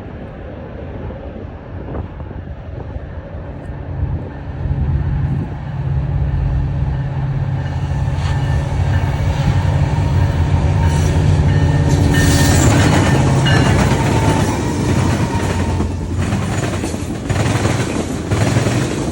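A train approaching and passing. Its engine drone builds for several seconds and is loudest a little past halfway. It then gives way to rushing noise and a run of sharp rail clicks as the cars go by.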